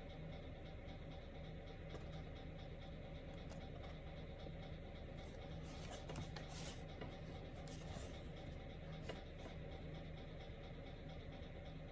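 Paperback book pages being handled and turned, a few brief dry rustles in the middle, over a steady low room hum.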